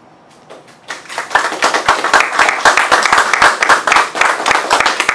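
Audience applauding: a few scattered hand claps, then full applause from about a second in.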